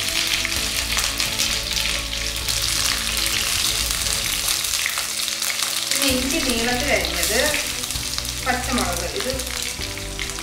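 Mustard seeds, curry leaves, green and dried red chillies and ginger sizzling and crackling in hot oil in a kadai for a tempering. Background music plays under it, with a melody coming in about six seconds in.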